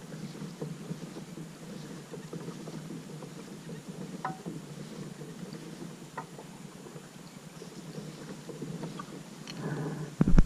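Water sounds around a kayak on the move, with a few light knocks and one loud knock just before the end.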